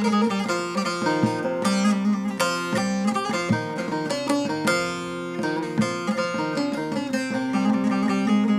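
Short-neck bağlama (saz) with a mahogany bowl and spruce top, played solo: a quick plucked melody over a steady, ringing low drone.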